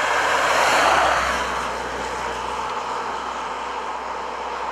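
Jensen-Healey sports car with its Lotus twin-cam four-cylinder driving past, a rush of engine and tyre noise that swells about a second in and then eases off as it pulls away.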